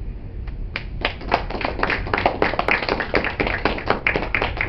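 A small audience applauding: a handful of people clapping irregularly, starting under a second in.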